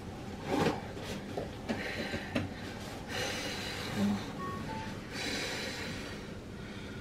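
Woman in labour breathing through a contraction: two long, audible breaths out about three and five seconds in, with a few short knocks and rustles, the loudest one about half a second in.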